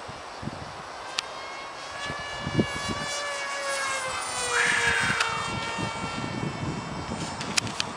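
RadJet 800 RC foam jet, driven by an electric pusher propeller, flying past overhead: a high whine with several harmonics that sounds like a turbine, rising in pitch and then falling away about halfway through as it passes.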